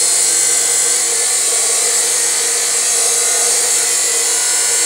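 Electric welder laying a weld on a steel rod: a loud, steady crackling hiss with a faint hum under it, starting and stopping abruptly.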